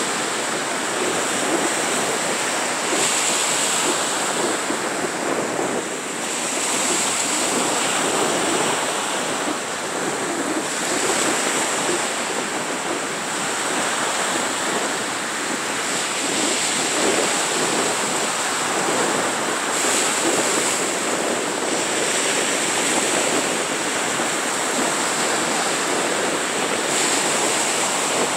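Small waves breaking and washing up a sandy beach: a steady wash of surf.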